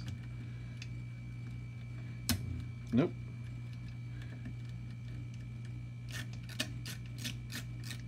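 Small metal clicks and taps of a nut driver turning the little screws of a metal cable clamp, scattered, with a few sharper clicks near two and three seconds in and a cluster near the end. A steady low hum runs under it, and a brief rising sound comes about three seconds in.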